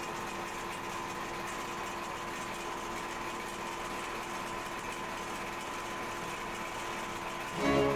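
Thread-feeding machine running steadily: an even mechanical hum with a steady high tone over it, as thread runs off a spool through its wire guides.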